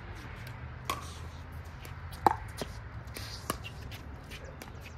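Pickleball rally: paddles hitting the plastic ball, a string of sharp hollow hits about a second apart, the loudest a little past halfway.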